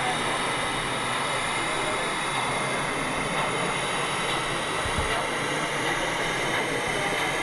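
Steady background hubbub of a busy exhibition hall, with distant voices and general noise and no single sound standing out; a soft low thump about five seconds in.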